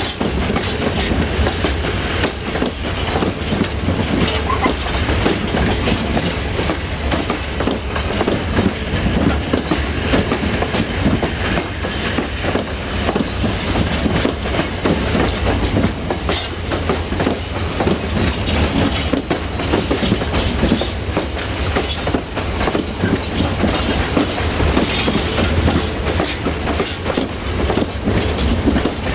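Fals bogie hopper wagons of a freight train rolling past close by, their wheels clattering on the rails in a steady rumble dense with clicks.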